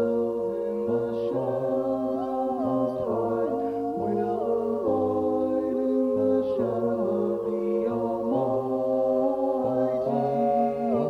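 Background music: slow, choir-like vocal chords, each held for a second or two before moving to the next.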